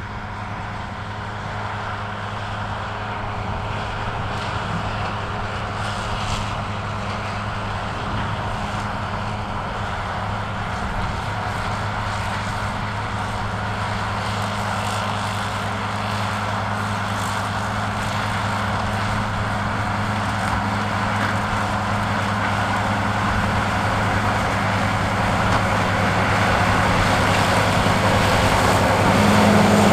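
A vehicle engine running steadily at an even speed, its hum growing gradually louder and loudest near the end.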